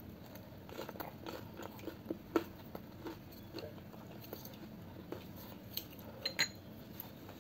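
Close-up chewing of a crispy pan-fried dumpling: a quick run of small crunches for the first few seconds, then a few scattered crunches near the end.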